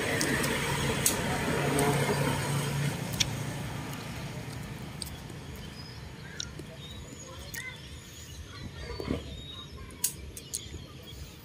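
Outdoor garden ambience: a low engine-like hum fades away over the first few seconds. Then faint short bird chirps and scattered clicks and rustles of leaves and twigs as branches are handled.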